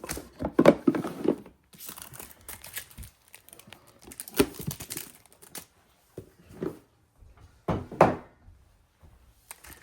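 Packaging crinkling and rustling as it is handled, in irregular bursts, with a thud about eight seconds in.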